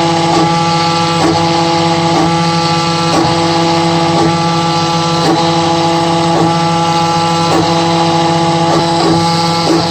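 Homemade CNC router cutting wood on a roughing pass: a steady motor hum with the cutter chewing through the wood, broken by a brief hitch about once a second.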